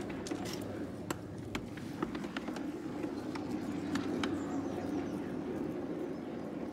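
Footsteps of a person walking, irregular sharp steps roughly twice a second, over a steady low background hum.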